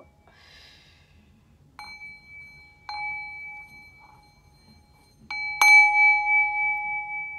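A small metal chime struck three times, used for energy clearing: a light tap about two seconds in, another about a second later, and the hardest strike near six seconds. Each strike rings on in a clear, high, two-toned note that fades slowly.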